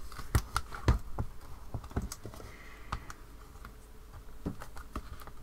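Hinged stamping platform being used: its clear plastic lid is closed and hands press and pat it down to stamp an image onto card, giving a run of irregular sharp clicks and taps.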